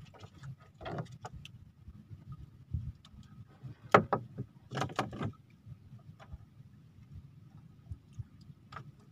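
Handline being hauled in by hand aboard a wooden outrigger boat: scattered light knocks and taps against the hull, with one sharper knock about four seconds in, over a low steady rumble.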